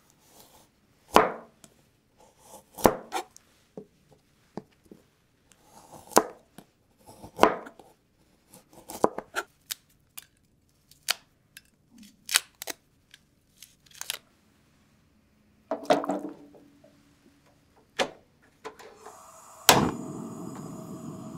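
A kitchen knife cuts through raw chestnut shells on a cutting board and pares them in the hand: sharp, separate cuts and scrapes at irregular intervals. Near the end there is a knock, then a steady hiss of water heating in a steel pot.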